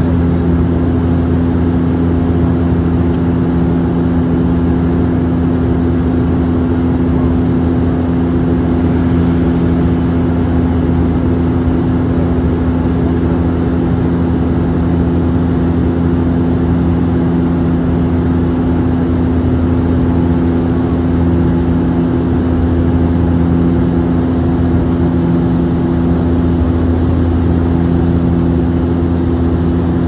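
Turboprop airliner's engines and propellers running at a constant setting, heard inside the passenger cabin: a loud, even hum with several fixed low tones over a steady rush of noise.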